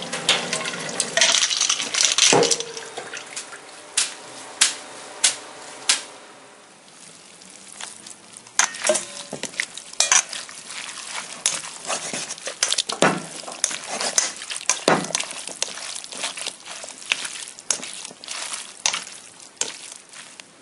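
Water sloshing around pasta in a stainless steel strainer, with a few sharp metal clinks. From about eight seconds in, metal tongs clink and scrape irregularly against a stainless steel bowl as spaghetti is tossed with cucumber sauce.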